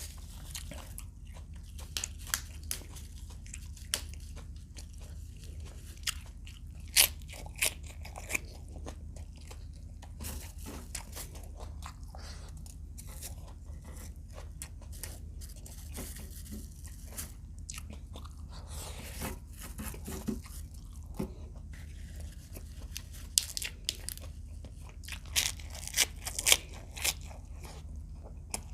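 Person eating fried adobo quail close to the microphone: sharp crunches and chewing come at irregular intervals, loudest about seven seconds in and in a cluster near the end, over a steady low hum.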